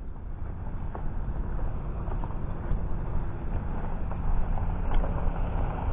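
Wind rumbling on the microphone outdoors, with a few faint clicks scattered through.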